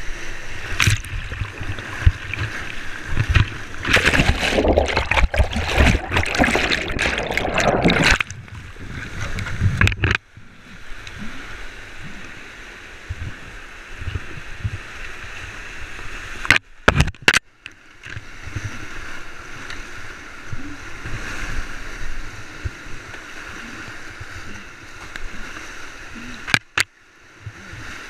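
Whitewater rapids rushing around a kayak, close to a helmet camera. Heavy splashing and buffeting on the microphone for the first ten seconds or so, then a steadier rush of the river. A few sharp knocks come near the middle and near the end.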